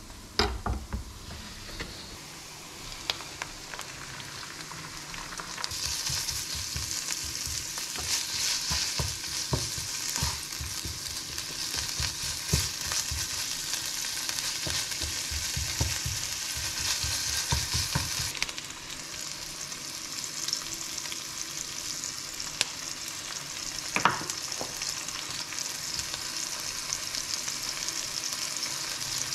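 Ground meat and chopped vegetables sizzling in a frying pan while a spatula stirs and scrapes them, with many light knocks against the pan. A few sharp knocks come near the start. The sizzle starts strong about six seconds in and eases somewhat about two-thirds of the way through.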